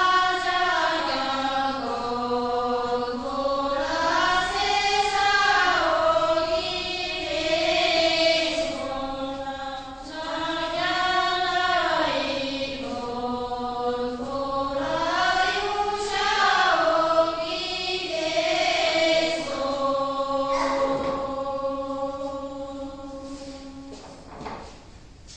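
Group of women singing a slow Sherpa traditional dance song in unison, unaccompanied, the melody rising and falling in long held notes. The singing fades and stops near the end.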